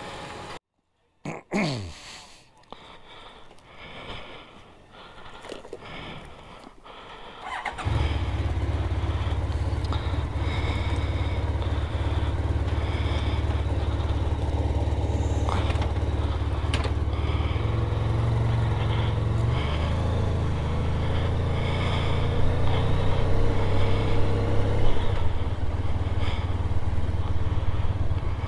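A motorcycle engine starts abruptly about eight seconds in and settles into a steady idle. Near the end it runs a little louder and more unevenly as the bike pulls away.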